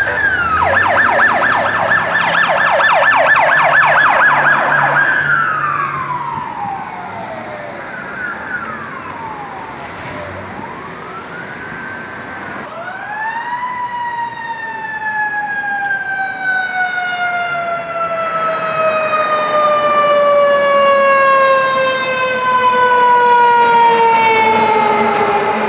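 Fire truck sirens: a fast electronic yelp for about five seconds that drops away, then a few slower wail sweeps. About 13 seconds in, a siren winds up and then slowly winds down, its pitch falling steadily for the rest of the time, in the way of a coasting mechanical siren.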